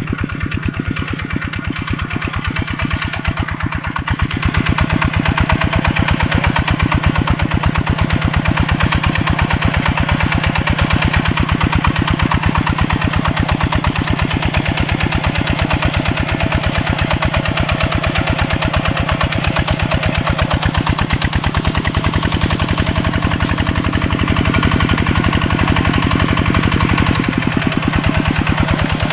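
Small tractor's single-cylinder diesel engine chugging steadily under load while plowing a muddy field. It gets louder about four seconds in.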